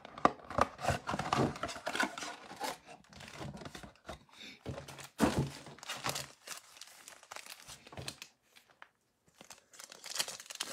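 Mosaic football card mega box being opened by hand: cardboard flaps and foil card packs rustling and crinkling, with a louder handling burst about halfway. Near the end a foil pack is torn open.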